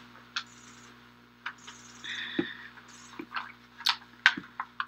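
Scattered small clicks, rustles and breaths close to a podium microphone as a speaker settles in and adjusts her face mask, over a faint steady hum.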